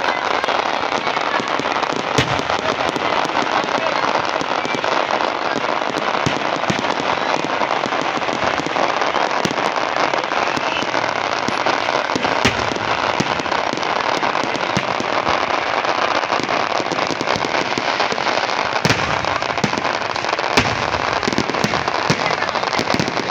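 Fireworks display going off continuously: dense crackling and popping throughout, with sharper bangs standing out a few times.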